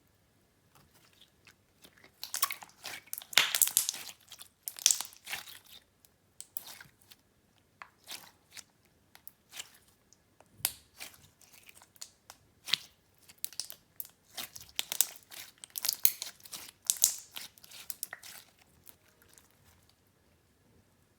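Clear slime being squished and pressed by hand, giving irregular bunches of crackling and popping clicks with short quiet gaps between.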